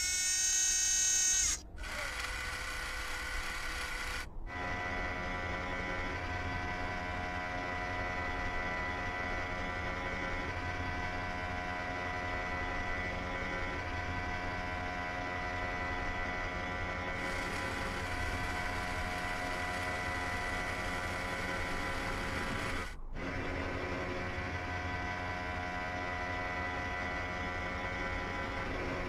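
Animated Mars rover's robotic arm motors whirring: a short loud whine, then a long steady electric-motor hum made of several held tones, which drops out for a moment near the end.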